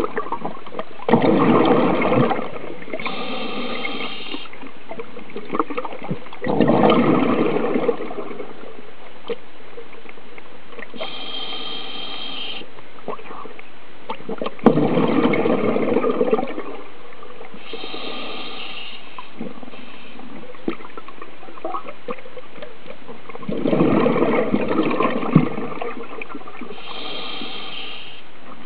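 Scuba diver breathing through a regulator: four bubbling exhalations, each followed about two seconds later by the shorter, buzzing hiss of an inhalation, about one breath every eight seconds.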